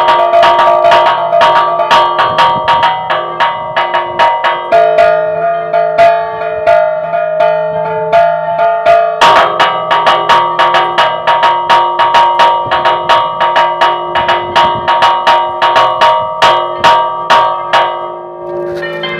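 Church bells chimed in a fast repique, their clappers struck against the bells while the bells hang still rather than swinging, about four strokes a second with the pattern shifting twice. The bells are the belfry's two 'romana' bells, left unswung because the grease on their iron yokes has dried.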